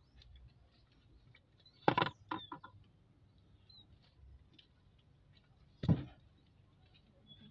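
Two short knocks or bumps, about two and six seconds in, over a quiet outdoor background with a few faint bird chirps.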